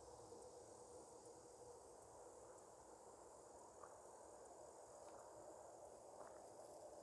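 Near-quiet outdoor ambience with a faint, steady chorus of insects.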